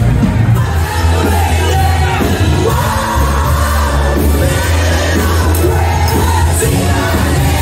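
Loud music with a singer over a heavy, steady bass line.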